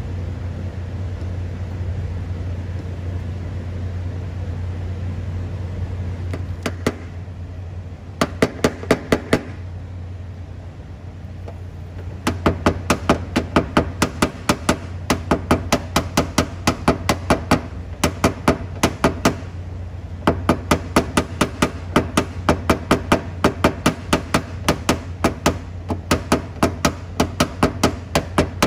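Runs of quick, light taps on sheet-metal car bodywork from a paintless dent repair tap-down tool, about four or five taps a second with short pauses between runs, knocking the body line down level. A steady low hum lies underneath.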